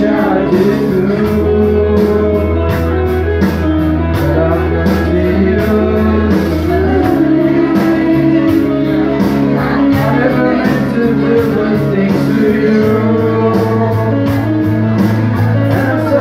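Karaoke backing track with guitar and a bass line that changes note every few seconds, played loud through a PA system, with men singing along into microphones.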